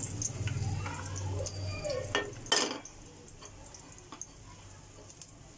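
Kitchen utensils handled at a frying pan on the stove: a light click, then a sharp metal knock about two and a half seconds in. After that only a few faint ticks.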